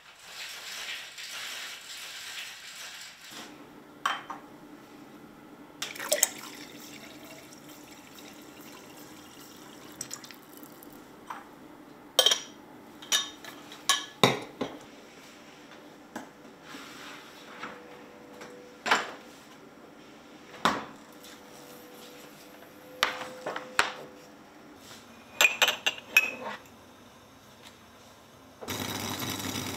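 Kitchenware being handled: sharp clinks and knocks of dishes and a white enamel kettle being set down on an induction hob, scattered through the stretch over a steady low hum. A hissing rush fills the first three seconds.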